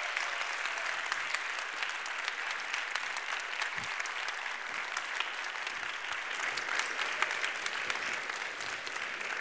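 Audience applauding, a steady dense clapping that holds an even level throughout.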